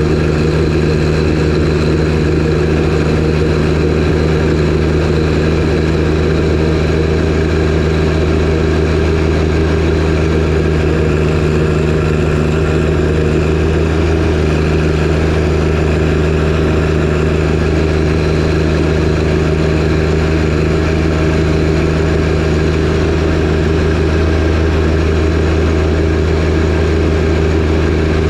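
John Deere 1025R compact tractor's three-cylinder diesel engine running at a steady, unchanging speed while driving its 47-inch snowblower.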